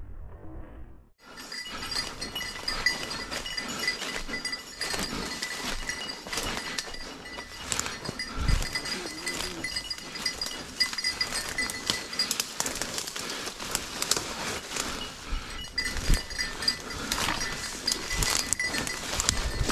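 A small bell on a pointing dog's collar jingling steadily as the dog moves, over crackling and rustling of brush and leaves underfoot as a hunter pushes through the undergrowth.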